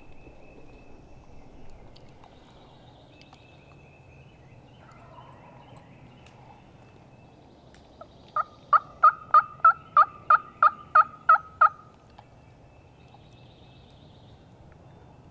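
Turkey yelping: a series of about a dozen loud, evenly spaced yelps, about three a second, lasting three to four seconds.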